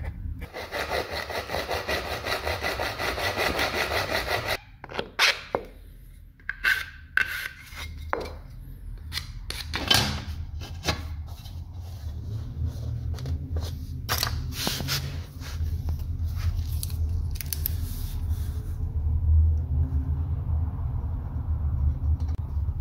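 A hand tool rasps steadily on the threshold strip, like sawing or filing, for about four and a half seconds and then stops. After that come scattered sharp clicks and knocks as the trim strip is handled and fitted, then a low rumbling handling noise.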